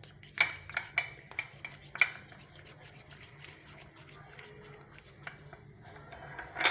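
A spoon stirring mayonnaise and ketchup in a small cup, clinking against the cup several times in the first two seconds, then quieter, with one sharper clink near the end.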